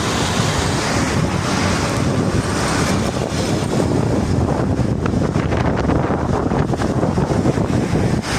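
Martil river in full flood: a steady, loud rush of fast-flowing floodwater.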